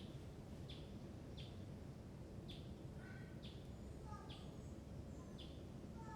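Faint birdsong: one bird repeats a short high chirp about once a second. Softer, lower chirps join in about halfway through, over a steady low background hum.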